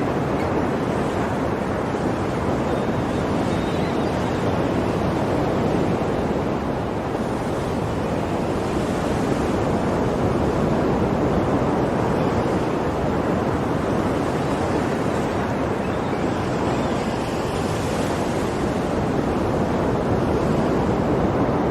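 Sea waves surging and washing on the shore: a continuous rush of surf whose hiss swells now and then.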